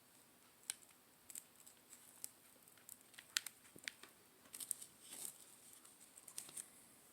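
Faint, scattered small clicks and crinkles of light objects being handled, with a sharper click about a third of the way in.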